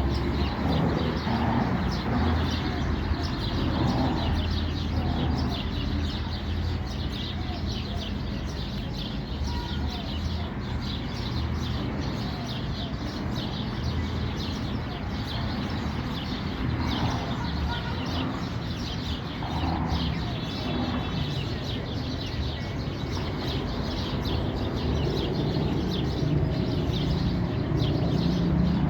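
Many small birds chirping at once, a dense and continuous chatter of short high calls, over a steady low rumble.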